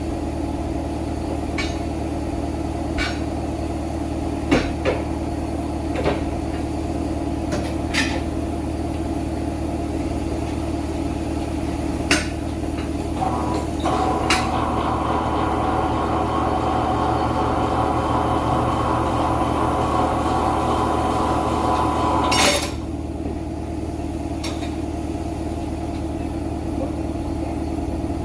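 Steady hum of a running shop machine under scattered sharp metallic clinks and knocks of tools being worked on a tire and wheel. A short, loud hissing burst comes about 22 seconds in.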